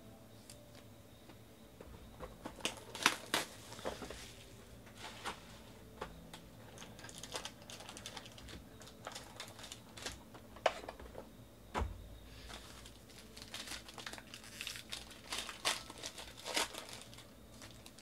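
A cardboard trading-card hobby box being opened and a foil card pack crinkled and torn open, in a run of irregular crackles and clicks as the cards are handled. A dull thump about twelve seconds in.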